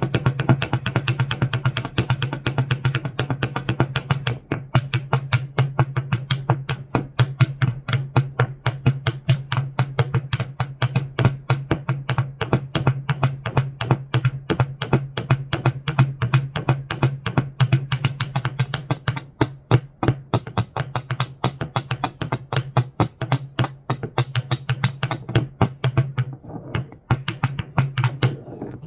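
Alga Electronic synthesizer playing a fast, even stream of sharp clicks, about five a second, over a steady low hum. Near the end the clicks thin out and the hum briefly drops away.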